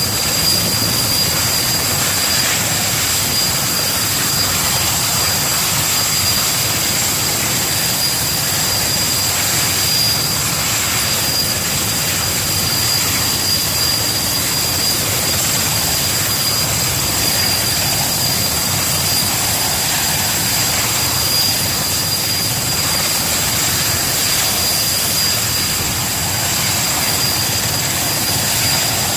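Erickson S-64 Air-Crane helicopter's twin turboshaft engines running steadily, a constant turbine whine over the rush of the engines and rotor.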